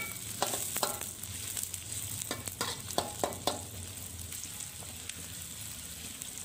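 Sliced shallots and garlic sizzling in hot oil in a metal wok. A metal spatula scrapes and clicks against the pan as they are stirred, with the scrapes coming thick in the first four seconds and fewer after that.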